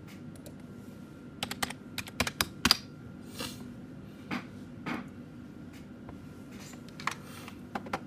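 Computer keyboard keystrokes: a quick run of several clicks, as in typing a login password, followed by a few scattered single key clicks.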